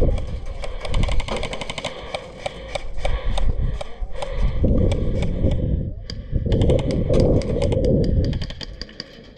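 Airsoft electric rifles firing in rapid clicking bursts, over low rumbling handling or wind noise on the microphone.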